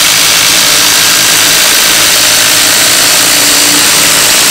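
Two Ryobi 18V One+ impact drivers, the P263 and the P236, hammering together at full speed as they drive long screws into a wooden log round. Their impacts merge into one loud, steady rattle.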